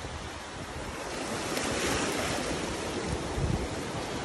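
Shallow water sloshing and lapping, with wind rumbling on the microphone.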